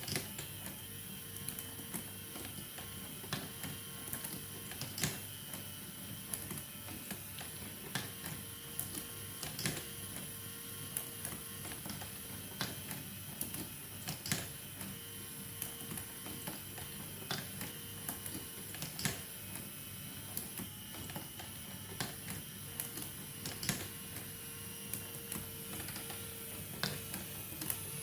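Marbles rolling and clicking along a marble run track: irregular sharp clicks, several a second, over a steady faint hum.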